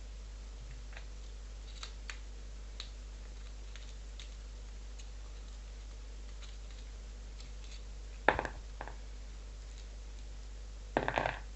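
Small metal clicks of an old padlock being taken apart by hand, with a sharp metallic knock about eight seconds in and a short rattling clatter of parts near the end.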